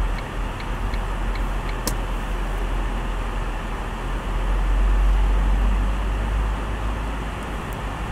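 Steady road and engine noise heard inside a moving car's cabin: a low rumble under a tyre hiss, swelling a little midway. One sharp click about two seconds in.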